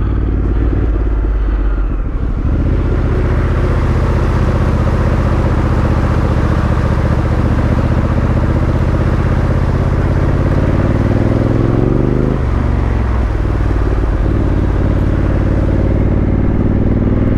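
Honda CRF1100L Africa Twin's parallel-twin engine running steadily under way through shallow floodwater, with a continuous rushing noise over it. About twelve seconds in, the engine note dips briefly, then climbs steadily as the bike accelerates.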